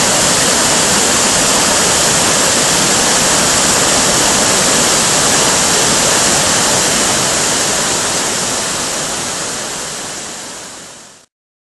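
Steady rushing of a waterfall cascading down over boulders, a loud even hiss. It fades out over the last few seconds and stops just before the end.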